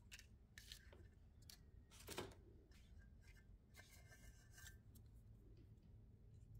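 Faint rustling and small ticks of die-cut paper pieces being sorted by hand in a metal tray and laid on the page, with one louder tap about two seconds in.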